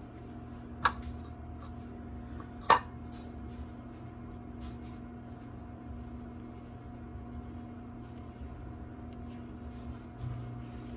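Two sharp clinks of a pastry brush knocking against glass, about two seconds apart, amid faint soft dabbing and tapping as egg white is brushed onto a pie crust. A steady low hum runs underneath.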